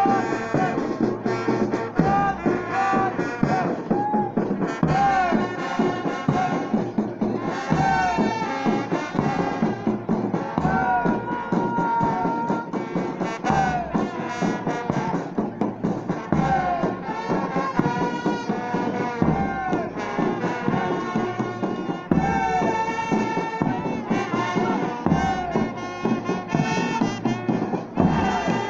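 Marching band music with brass and a recurring bass-drum beat.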